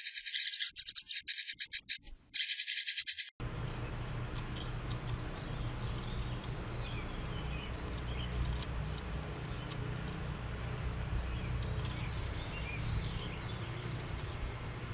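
House wren song: a rapid, bubbling, pulsing chatter. About three seconds in it gives way abruptly to faint bird chirps and short high notes over a steady low rumble of background noise.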